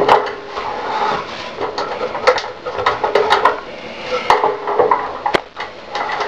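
Adjustable wrench working on the end plug of an aluminium heating radiator: irregular metal clinks and knocks, a few ringing briefly, over rubbing and scraping as the plug is turned loose.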